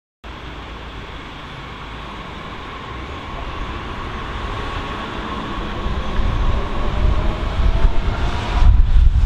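S-Bahn electric multiple unit moving off: its traction motors give a whine that rises gently in pitch as the train gathers speed. The sound grows louder throughout, with a heavy low rumble coming in near the end.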